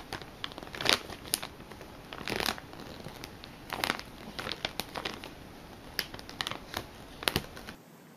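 Crinkly plastic packaging rustling and crackling in irregular bursts as a cat noses into it and a baby paws at it.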